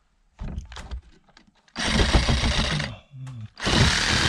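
Cordless reciprocating saw cutting into the OSB subfloor overhead to widen a round hole, in two runs of about a second each after a short first burst.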